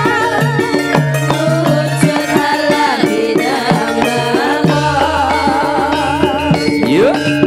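Javanese gamelan music with women sinden singing with a wide vibrato, over a steady pattern of low metallophone notes and hand-drum strokes.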